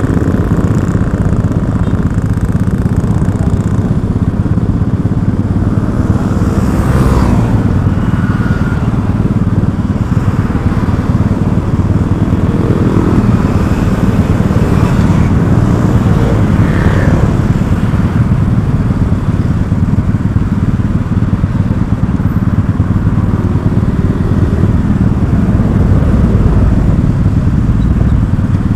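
Steady loud low rumble of a road vehicle on the move, most likely a motorcycle, with brief louder sounds about seven and seventeen seconds in.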